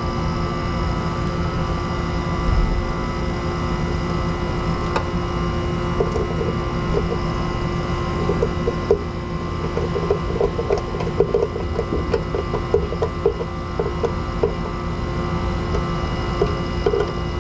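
Steady machine hum, with a run of quick clicks and rattles through the middle, thickest about two-thirds of the way in.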